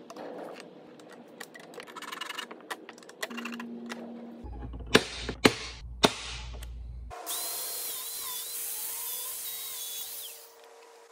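Light clicks and scrapes of small metal measuring tools on a steel pan. Then three sharp snaps about half a second apart as a centre punch marks the steel. Then an angle grinder runs for about three seconds cutting off steel threaded rods, stopping near the end.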